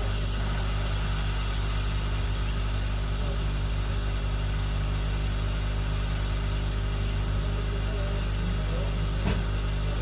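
Steady hiss of a hot-air rework station blowing over a phone circuit board, over a low hum.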